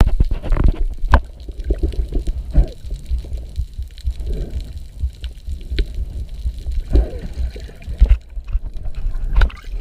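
Underwater sound picked up by a submerged camera: a constant low rumble of moving water, with bubbly gurgles of rising air about every two seconds and a couple of sharp clicks.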